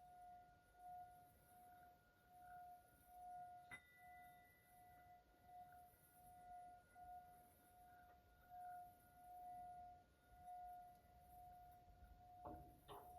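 Faint singing bowl hum, one steady tone swelling and fading about once a second. A light tap about four seconds in sets off a higher ring, and two soft knocks come near the end.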